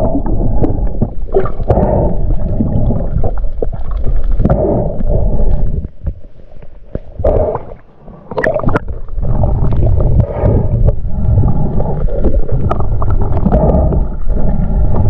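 Muffled water sloshing and gurgling around an action camera moving through the water at and just below the surface, with a few sharp splashes.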